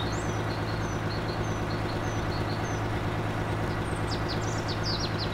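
BelAZ 75710 mining dump truck's diesel engines running with a steady low drone as the loaded truck drives. Small bird chirps sound faintly above it.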